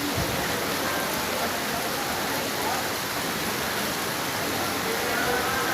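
Steady rushing noise of falling water at an even level, like heavy rain or a waterfall.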